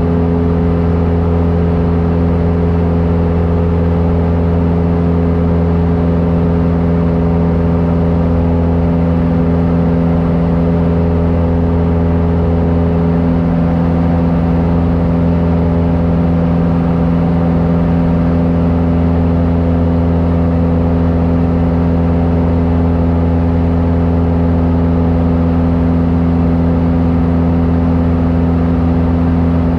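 Cessna airplane's engine droning steadily at a constant speed, heard from inside the cabin as a loud, low, even hum.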